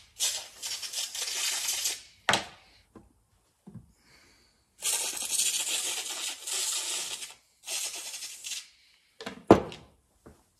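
Aerosol brake cleaner sprayed in hissing bursts onto a chainsaw air filter: three spells, each a second or two long. There are two sharp knocks, one about two seconds in and a louder one near the end.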